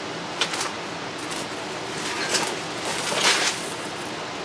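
Rustling of an artificial grass pick's plastic leaves and stems as it is pulled out of a cardboard box: a few short rustles, the loudest about three seconds in, over a steady hiss.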